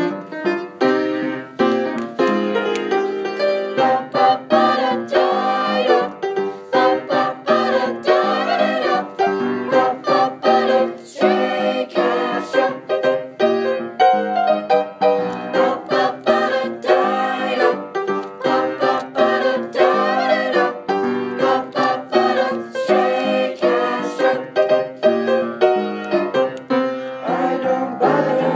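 Jazz choir song with piano accompaniment, in a passage with no sung lyrics.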